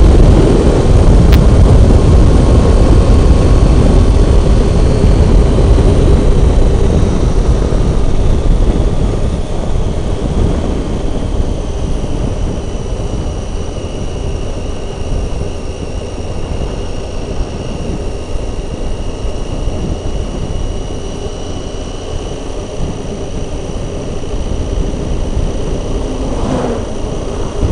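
Motorcycle riding at road speed: the Triumph Tiger 800's three-cylinder engine running under heavy wind rush on the microphone, with a faint steady whine. The sound eases a little about ten seconds in.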